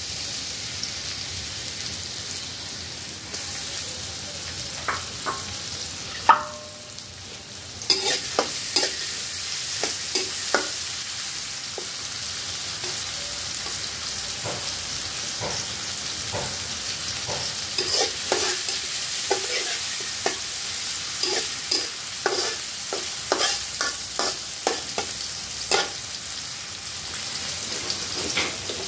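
Sliced onions and green chillies frying and sizzling in a metal wok, with a metal spatula scraping and clinking against the wok as they are stirred. The sizzle dips briefly, and from about eight seconds in the scrapes and clinks come often.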